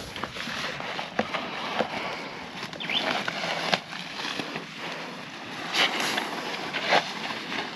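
Soft, scattered rustles and crunches over a steady hiss, from dry chicken manure being scooped from a woven sack and thrown by hand onto dry soil, along with steps on dry grass.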